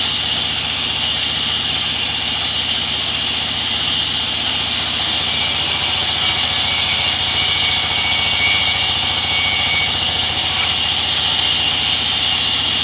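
Sawmill machinery running steadily: a low engine hum under a strong, even hiss. A brighter hiss joins about four seconds in and drops away about ten and a half seconds in.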